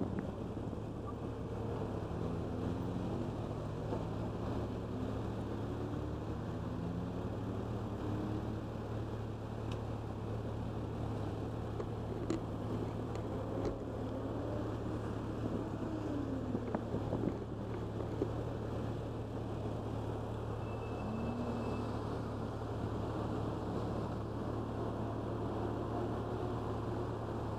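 Motorcycle engine idling steadily while stopped, with the engines of cars crossing the intersection rising and falling in pitch as they pass. A few faint clicks sound in the middle.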